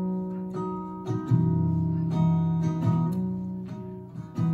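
Guitar strumming chords in the intro of a slow song, a new strum about once a second with the chords ringing on in between.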